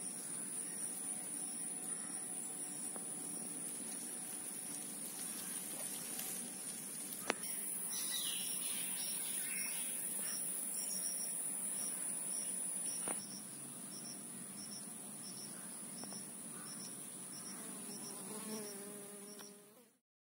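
Insects calling: a steady high drone with a cricket chirping in even pulses about two to three times a second. The high drone stops about thirteen seconds in, and the sound fades out near the end.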